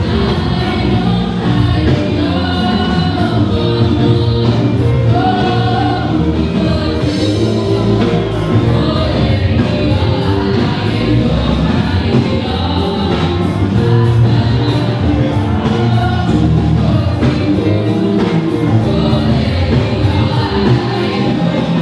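Choir singing gospel music over instrumental accompaniment with a steady beat.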